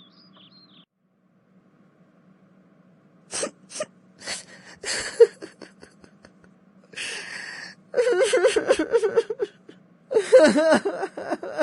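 A cartoon child crying: a few short sharp breaths and sniffs, then wavering, sobbing cries from about eight seconds in.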